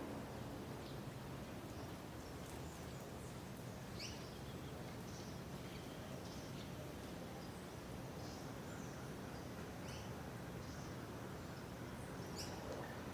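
Birds giving scattered short, high chirps, a few seconds apart, over a steady low background noise.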